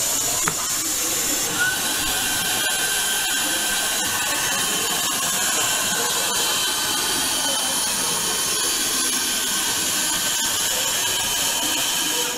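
Vacuum pump of a suction-cup prize machine running steadily as a whirring hiss while the suction head holds and carries a candy packet, cutting off abruptly near the end.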